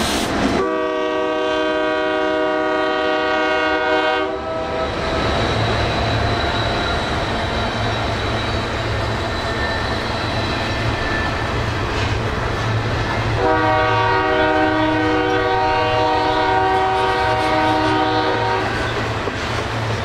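Union Pacific diesel locomotive's air horn sounding two long blasts, the first about four seconds long and the second about five, with a steady low drone of the locomotives' diesel engines underneath as the train approaches.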